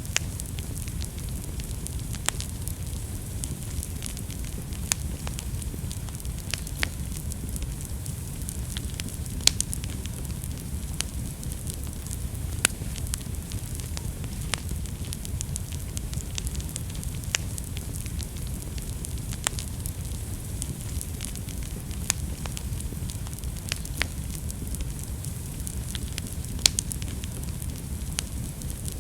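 Wood fire burning in a fireplace: a steady low rumble of flames with irregular sharp crackles and pops, a few of them louder.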